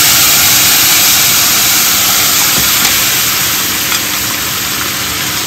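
Loud steady hiss and bubbling as oily sautéed bagoong is poured into a pot of boiling broth, fading slightly toward the end, over the drone of a running kitchen range hood fan.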